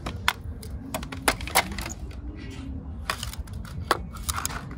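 Picture frames clinking and knocking against each other as they are handled and sorted: a handful of sharp, irregular clinks over a low steady background hum.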